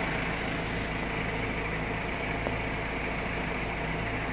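A pickup truck's engine idling steadily, supplying jump-start power to a car with a flat battery.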